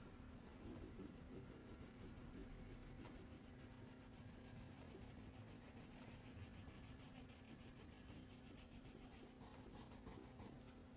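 Faint scratching of a green wax crayon rubbed quickly back and forth on paper while colouring in, over a steady low hum.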